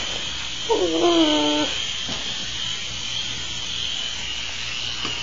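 Toy RC helicopter's small electric motor whining steadily in flight, a high-pitched even tone over light hiss. A short voice sound cuts in about a second in.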